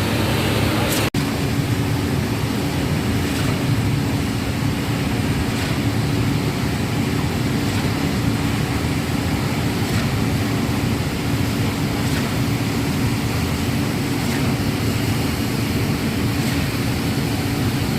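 Putzmeister truck-mounted concrete pump running steadily with its diesel engine under load while pumping concrete. There is a brief dropout about a second in.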